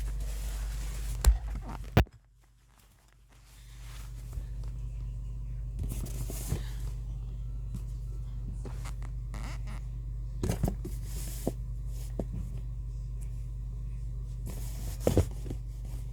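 Handling noises: two sharp clicks, then scattered scrapes and rustles over a steady low hum that drops out briefly after the second click.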